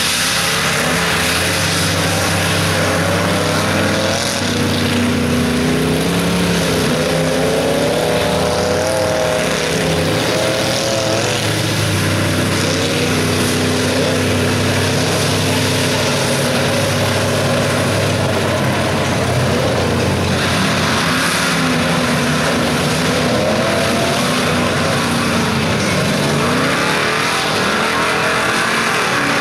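Big-block V8 engines of mega mud trucks running hard and revving as their tires churn through a mud pit, the engine pitch rising and falling over and over.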